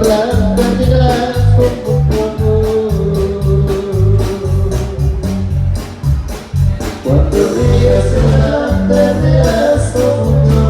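Music with a heavy, regular bass beat and singing.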